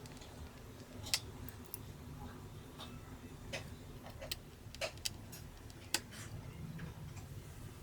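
Irregular small clicks and taps of a screwdriver and small parts on a Canon EOS Rebel T6 (1300D) camera body being taken apart, with the sharpest clicks about a second in and near six seconds. A low steady hum runs underneath.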